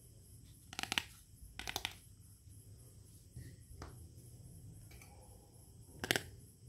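Small plastic toy kitchen pieces clicking and clattering as they are handled and set down on a table: a short clatter about a second in, another near two seconds, a couple of faint taps midway and a last clatter near the end.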